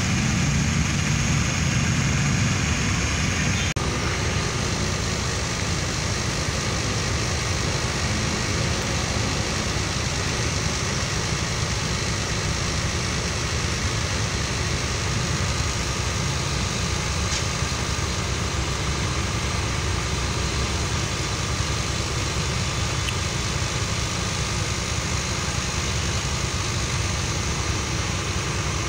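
Heavy diesel engine running steadily: a Kalmar reach stacker handling a flat-rack container loaded with a truck. The first few seconds are a truck engine heard from inside its cab, and the sound changes abruptly about four seconds in.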